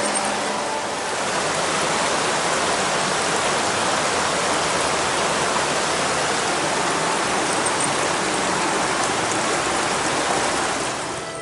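Creek water rushing steadily, a dense, even hiss of running water that fades out near the end.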